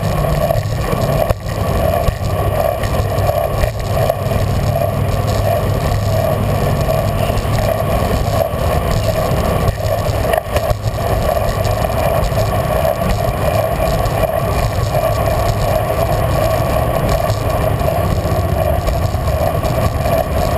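Steady rush of wind and road noise from a bicycle riding along a paved path, with freeway traffic mixed in.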